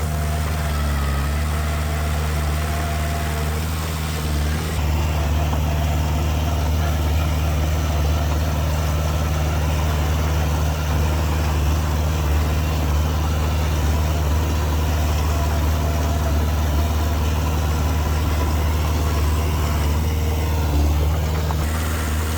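Heavy machinery's diesel engine running steadily, a bulldozer or dump truck on a fill site. It grows a little louder from about five seconds in.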